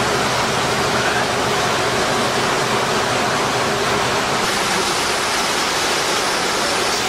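Water rushing and splashing steadily along the hull of the moving solar catamaran Tûranor PlanetSolar, heard right at the waterline as an even, loud rush.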